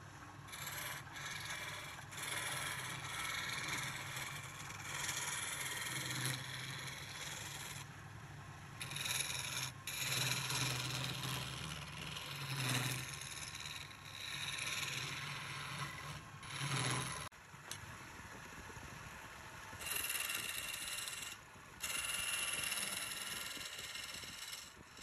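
Wood lathe turning a wooden spindle while a hand-held chisel cuts into it: scraping cutting noise in bursts of one to three seconds, broken by short pauses as the tool is eased off, over a low hum through the first two-thirds.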